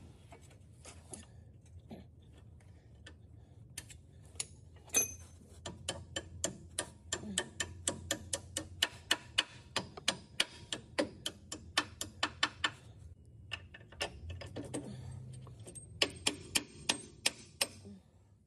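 Hand ratchet wrench clicking in an even series of sharp metal ticks, about three a second, as a walking-beam bushing bolt is turned. It runs for several seconds, pauses, and starts again briefly near the end.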